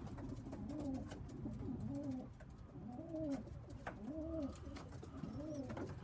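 Pigeons cooing: a run of low coos, each rising and falling in pitch, coming about once a second.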